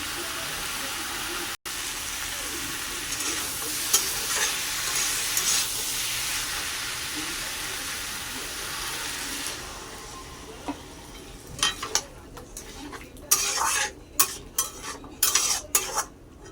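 Food sizzling steadily in a hot pan while it is stirred. After about ten seconds the sizzle drops away, and a spatula clinks and scrapes against the pan several times.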